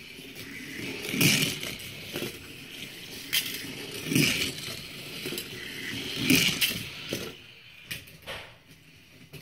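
Hot Wheels die-cast toy cars rolling down orange plastic track, a rattling roll that swells to three louder clatters: about a second in, at about four seconds and at about six seconds, with a few sharp clicks near the end.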